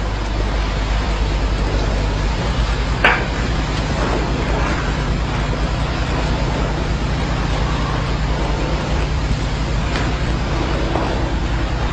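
Steady low electrical hum with hiss, with a single faint click about three seconds in.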